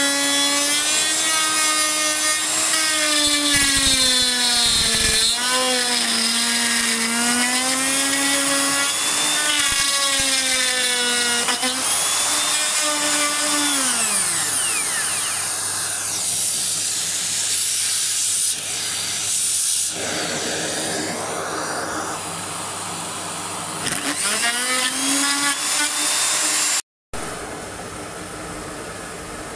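Parkside POF 1200 C2 plunge router running and cutting into a wooden block, its motor whine sagging and recovering as the bit bites into the wood. The motor winds down near the middle and spins back up again later.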